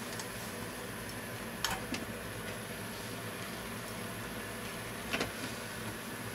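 Spaghetti and clams simmering in a bubbling sauce in a metal frying pan, over a steady hum; a utensil knocks against the pan twice, about a second and a half in and again after five seconds.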